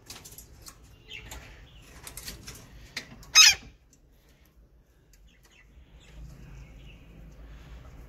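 Alexandrine parakeet giving one short, loud squawk about three and a half seconds in, with light rustling and clicks before it.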